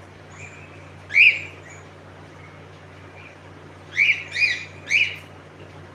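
Cockatiel chirping: one short call about a second in, then three quick chirps near the end, over a faint low steady hum.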